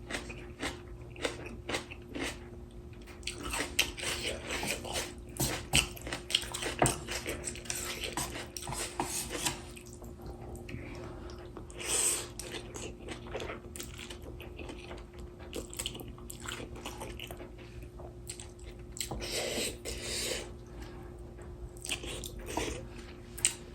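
Close-up eating sounds: chewing and crunching of spicy instant noodles and fresh kimchi, with irregular wet mouth clicks and a few louder bursts.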